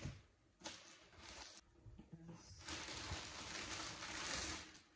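Plastic carrier bags rustling and crinkling as groceries are handled, in scattered bursts at first, then a denser, steadier rustle through the second half.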